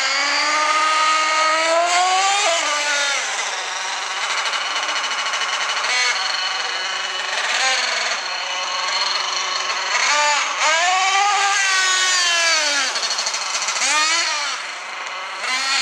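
Thunder Tiger Sledge Hammer S50 nitro RC monster truck's small two-stroke glow engine running at high revs. Its high whine rises and falls in pitch again and again as the throttle is worked, with quick rev-ups and drops about two-thirds of the way through and near the end.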